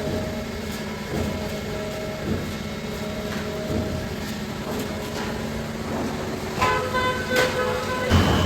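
Factory machinery running steadily with scattered knocks. Near the end a pitched hooting tone sounds for about a second and a half, followed by a loud bang.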